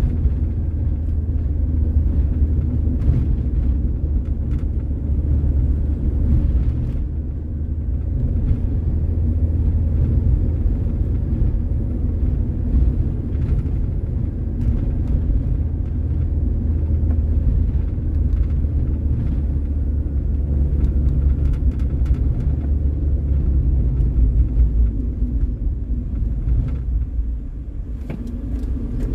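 Steady low rumble of a vehicle driving along a road: engine and road noise, with no change in pace.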